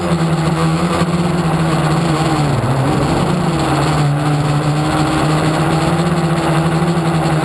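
Motor of a radio-controlled FPV model, heard loud and close from its onboard camera, running with a steady hum and a brief dip in pitch about two and a half seconds in.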